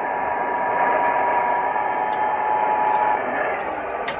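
Weather radio receiver static: a steady hiss with a faint steady tone that stops about three seconds in.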